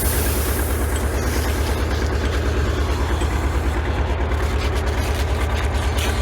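Tractor engine running steadily under load, driving a PTO that spins a sawmill shaft being polished, with a low pulsing rumble throughout. A high scrubbing hiss from the polishing fades about two seconds in.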